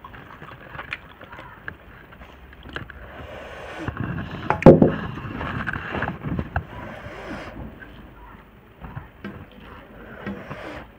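Fingers mixing rice and curry on a steel plate: soft scrapes and small clicks, with one louder knock about halfway through.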